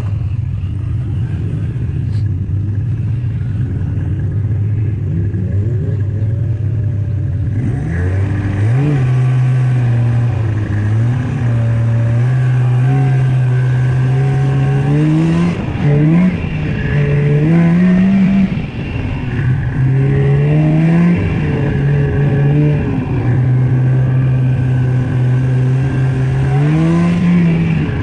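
Snowmobile engine running at a steady note, then from about eight seconds in revving up and easing off over and over as it rides off. The whole sound is played back at double speed.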